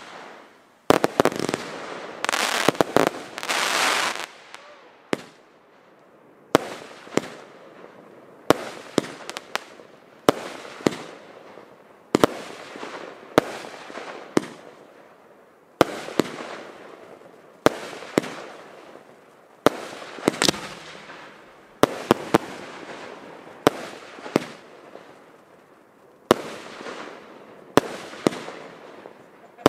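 Fireworks going off: a dense volley of bangs for the first few seconds, then a sharp bang about every second, each fading away over a second or so.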